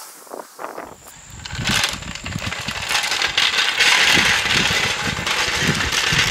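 A steel-wheeled floor jack rolling and rattling across an asphalt driveway as it is dragged by its handle, starting about a second in.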